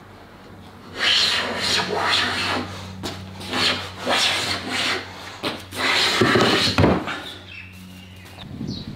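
Small hand plane cutting shavings off the edge of a wooden board: a run of short strokes, roughly one a second, stopping about seven seconds in.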